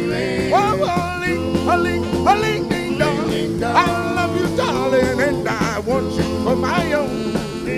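Live doo-wop group singing with a backing band: held vocal harmonies under a sliding lead line, with no clear words, as the song continues.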